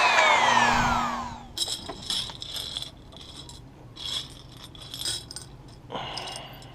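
Electric saw motor winding down after a cut, its whine falling in pitch and fading over about a second and a half. Then a series of light metallic clinks and rattles.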